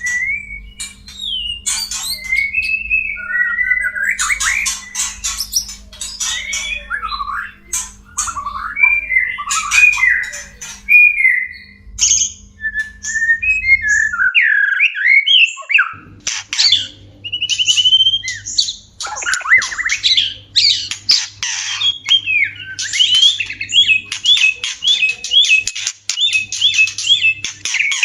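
White-rumped shamas calling in the mating calls used to bring caged birds into breeding condition. Harsh chattering and squawks mix with quick gliding whistles, and a rapid run of short repeated notes comes near the end. A low steady hum lies underneath and changes after a brief gap about halfway through.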